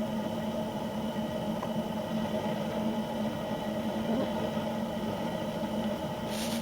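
A steady mechanical hum with a constant low drone, like a small engine or motor running. A short hiss comes near the end.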